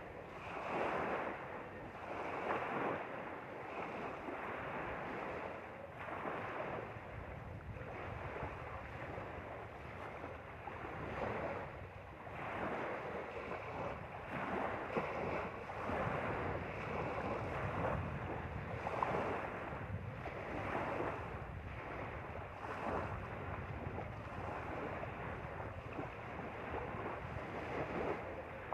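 Small lake waves lapping and washing at the shore, swelling and easing every second or two, with wind rumbling on the microphone.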